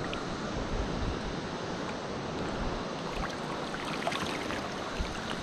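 Steady wash of shallow sea water lapping, with wind buffeting the microphone.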